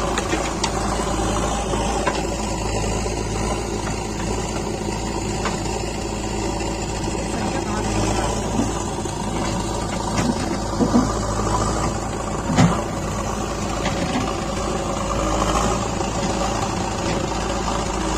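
Diesel engine of a JCB 3DX backhoe loader running steadily under work, with a few short knocks about ten to thirteen seconds in.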